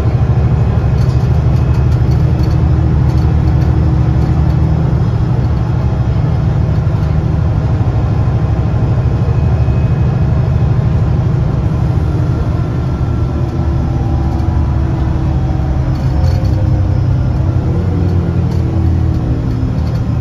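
London diesel bus engine pulling under load, heard from inside the passenger saloon while the bus is under way, with the engine note rising and falling near the end. The engine is in good condition and is being worked hard.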